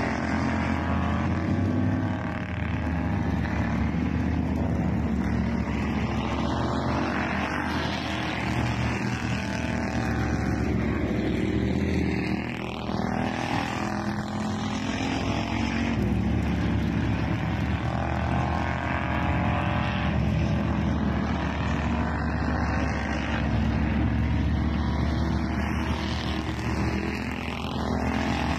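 Several race car engines running laps around a short oval in practice: a continuous engine drone that swells and fades as cars pass, with their pitch sweeping up and down.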